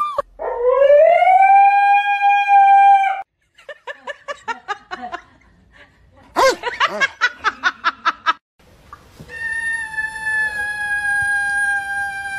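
A dog howls in one long note that rises and then holds for about three seconds. A dog then gives two quick runs of short barks, the second louder. From about nine seconds in, a kitten gives one long drawn-out meow that slowly falls in pitch.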